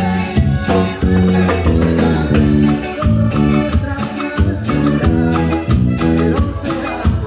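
Latin American dance music playing loudly, with shaken percussion such as maracas over bass and keyboard in a steady beat.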